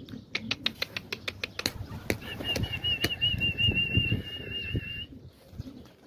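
Pigeons' wings flapping, a quick run of sharp wing claps, followed by a warbling high whistle held for about three seconds.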